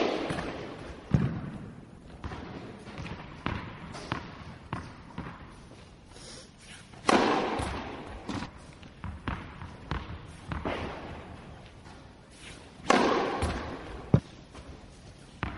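Tennis ball struck with a racket and bouncing on a court: three loud hits, one at the start, one about seven seconds in and one about thirteen seconds in, with lighter bounces and knocks between.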